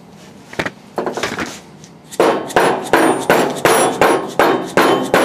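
Dead blow hammer blows driving the rotor shaft out of an electric motor's end bell bearing: a couple of separate knocks, then a steady run of about ten strikes, roughly three a second.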